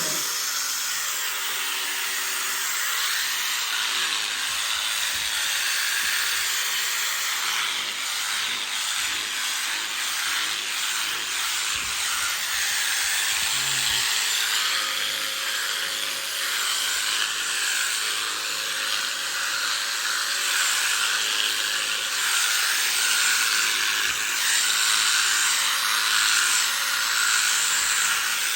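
Electric sheep shears running steadily as they cut through a sheep's fleece, a continuous buzzing hiss with a slightly changing texture as the cutter moves.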